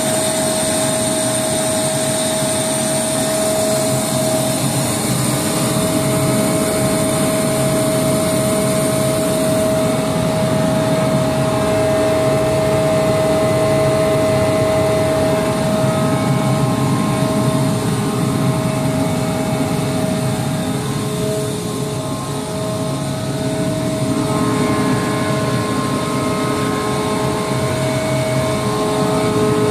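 Rotary screw air compressor running steadily: a loud, even mechanical drone with a constant whine over it.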